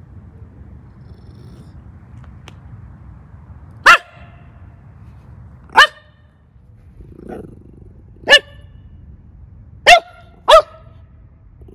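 Border Terrier barking five times, single short sharp barks spaced a couple of seconds apart, the last two in quick succession.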